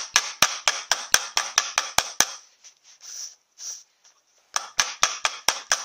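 Hammer tapping on a flat steel plate laid over a lip seal, driving the seal evenly into a cast-iron Powerglide front pump housing. Quick sharp taps come about four a second, stop for about two seconds midway, then resume.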